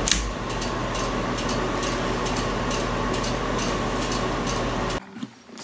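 Steady room noise with a low hum and faint scattered ticks, cutting off abruptly about five seconds in.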